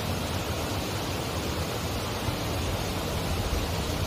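A steady rushing noise with a low rumble underneath.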